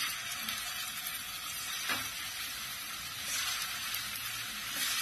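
Chicken gola kebabs sizzling in hot oil in a deep pot. The sizzle starts sharply as the first kebab goes into the oil and then runs on steadily, with a short crackle about two seconds in as another kebab is added.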